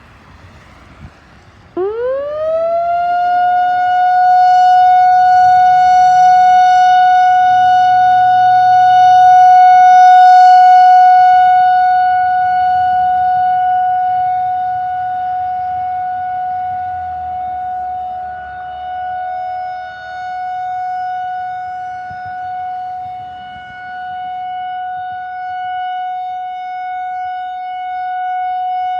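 Whelen WPS 4004 electronic outdoor warning siren starting up about two seconds in: the tone sweeps quickly up in pitch, then holds one steady note. Its loudness swells and fades slowly as it sounds.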